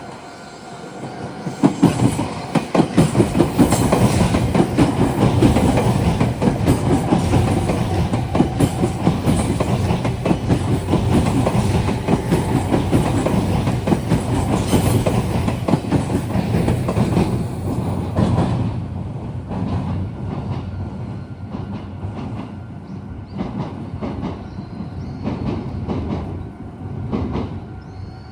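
Meitetsu electric train passing through the junction, its wheels clattering over the points and rail joints. The clatter builds about a second and a half in, stays loud for about seventeen seconds, then drops away to scattered clicks as the last cars clear.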